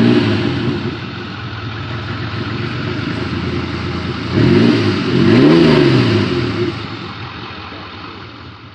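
An old truck engine running, revved up and back down twice near the middle, then settling back.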